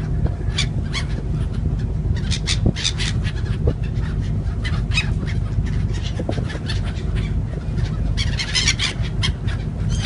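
Gulls calling in many short cries, thickest near the end, over a steady low rumble.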